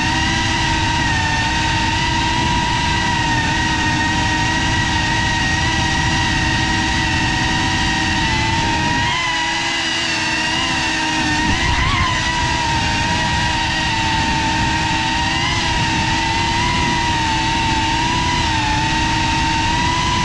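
FPV quadcopter's brushless motors and propellers whining steadily at cruise, with wind rushing past; the pitch wavers a little and briefly rises about twelve seconds in.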